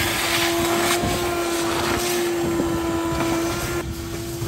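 Shop vacuum running with a steady whine and the rush of air through its hose as it sucks dirt off a truck cab floor; the rushing air drops away near the end while the motor keeps running.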